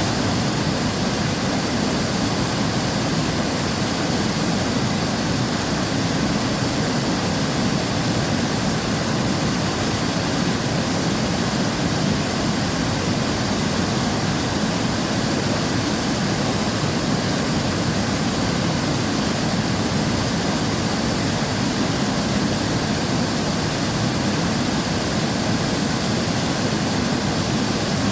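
River water rushing steadily, a constant full roar of flowing water with no breaks.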